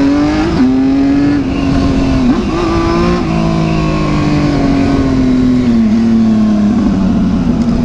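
Motorcycle engine running at road speed, with wind rushing over the action camera's microphone. The engine note dips briefly about half a second and two and a half seconds in, then slowly falls near the end.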